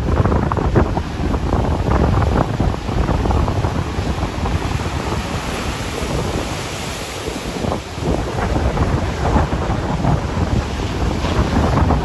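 Rough sea surf breaking and washing up the shore in a continuous churning rush, with the hiss of foam swelling about halfway through. Strong wind buffets the microphone throughout, adding a low rumble.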